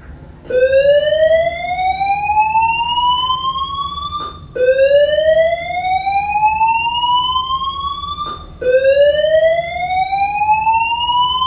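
School voice-evacuation fire alarm sounding its slow-whoop tone between recorded announcements: three loud rising whoops, each climbing steadily in pitch for about four seconds, then cutting off and starting again from the bottom.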